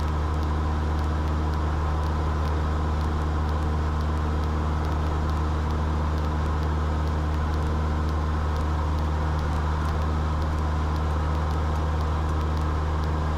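Cessna 172's engine and propeller droning steadily in flight, a constant low hum heard from the cockpit.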